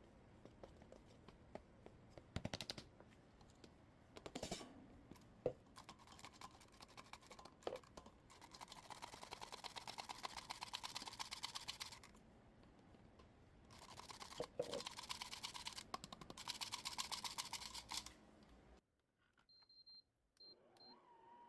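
Baking prep sounds: a few scattered knocks, then two bursts of fast, even clicking a few seconds each, like utensil work on a bowl. Near the end there are short high electronic beeps and a steady tone.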